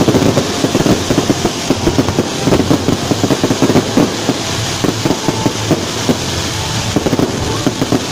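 Fireworks barrage: a dense, continuous run of pops and bangs from many bursting shells, several per second, with crackling sparks over it.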